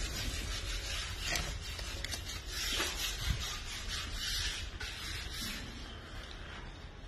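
Fabsome rice-paper masking tape being peeled off a painted wall: a dry rasping, ripping noise through the first few seconds that fades out near the end.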